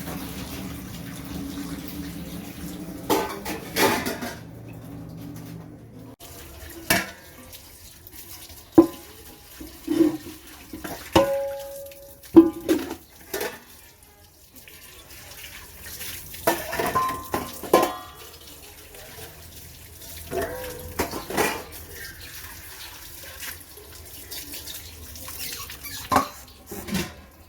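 Dishes being washed by hand at a sink: running tap water with irregular clinks and knocks of plates and pots, some ringing briefly.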